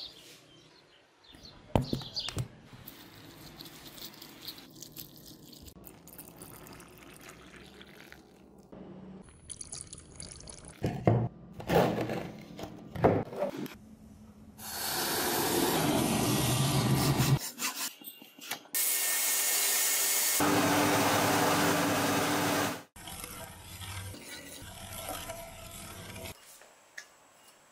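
A hot aluminium casting quenched in a bucket of water, sizzling and bubbling in two long loud stretches in the middle. A few sharp knocks and clinks come before it.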